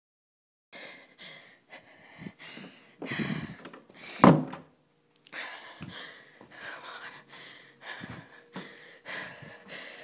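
Quick, heavy breathing close to a handheld phone's microphone, repeating about twice a second, with one loud door thunk a little past four seconds in.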